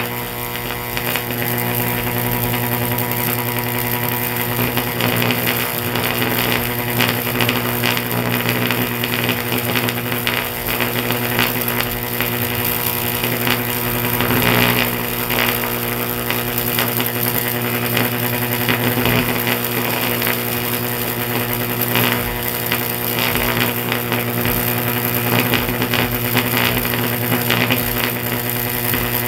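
Sustained high-voltage arc from a stack of microwave oven transformers (MOTs): a loud, steady electrical buzz with a strong low hum, broken by irregular crackling.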